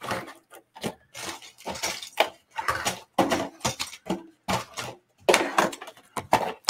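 Rigid clear plastic blister packs being handled and set down on a table: a string of irregular crinkles, clacks and scrapes.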